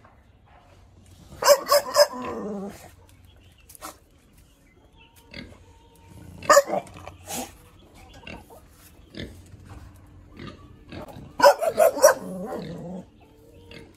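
A dog barking in three bursts: a few sharp barks about a second and a half in, two more about halfway, and a quick cluster near the end. The first and last bursts trail off into a falling whine.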